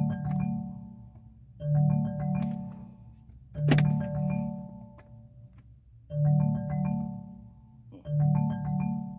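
Marimba-like incoming-call ringtone playing through a 2019 Chevrolet Malibu's audio system, a short melodic phrase repeating about every two seconds, five times. It keeps ringing with the engine and display off after a call failed to connect: the ring is stuck and doesn't want to turn off.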